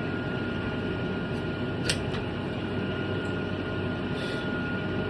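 Arc welding: a steady, dense crackle from the welding arc as a bead is laid on steel rod, with one sharp click about two seconds in.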